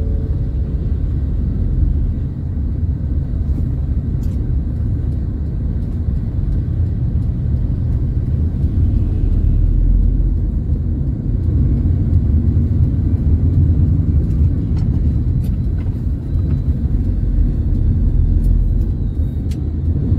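Steady low road and engine rumble inside a moving Honda car's cabin, with a few faint clicks.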